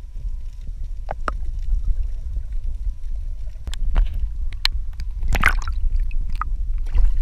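Water sloshing and splashing beside a boat, with small drips and clicks and a steady low rumble underneath; a hooked tripletail is being fought at the surface.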